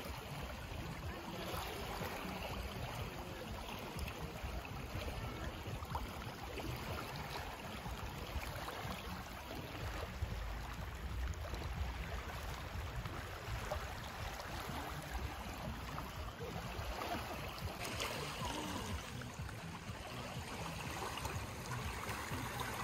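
Gentle lake water lapping in small waves: a steady, even wash with a low rumble beneath it.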